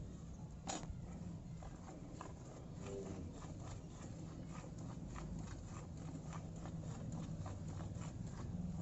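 Rhythmic squirts of milk into a pail as a Rathi cow is milked by hand, about three strokes a second, over a steady low hum. One sharper click a little under a second in.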